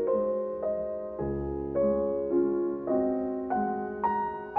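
Slow, gentle solo piano music: single notes struck about twice a second, each left to ring and fade.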